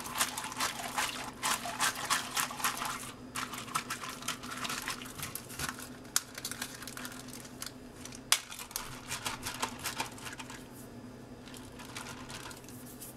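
Plastic bag of liquid buttermilk marinade crinkling as it is closed and squished around by hand, mixing the spices in. The crinkling is dense for the first few seconds and thins out later, with two sharp clicks about six and eight seconds in.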